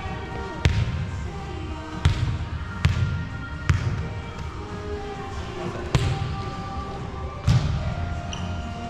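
Volleyball being played in a rally: six sharp slaps of the ball on hands and forearms, or on the floor, spaced irregularly across the nine seconds.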